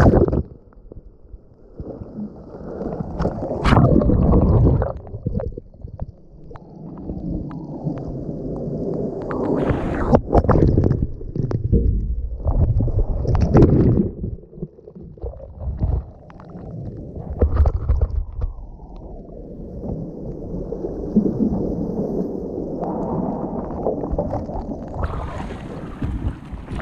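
Churning surf heard underwater through an action camera's housing: a muffled rushing and gurgling of turbulent water and bubbles that surges and eases, with a few sharp knocks. Near the end the camera breaks the surface and the wash of breaking waves comes through clearer and brighter.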